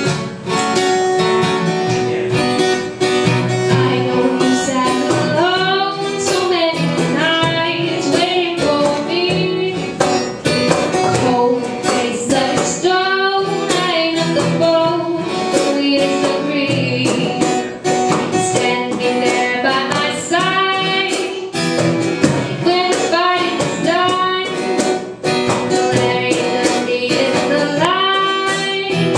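A young woman singing a song into a microphone over strummed acoustic guitar.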